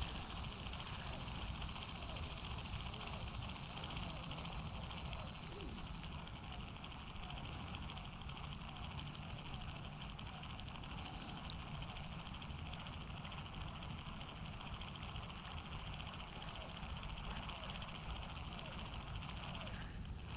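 Steady chorus of insects, a continuous high buzzing hum, over a low rumble; the buzzing dips out briefly near the end.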